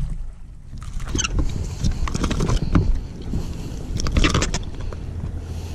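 A hooked bass being reeled in and swung aboard a bass boat: several sharp splashes and knocks, the strongest about four seconds in, over a low steady hum.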